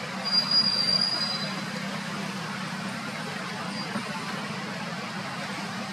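A steady low hum over background noise, with one high, thin whistle starting about a third of a second in and lasting about a second.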